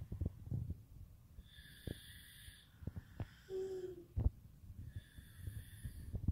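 Sleeping child breathing with a wheezy, whistling sound on each breath, about every three seconds. Soft low knocks and rustles are mixed in.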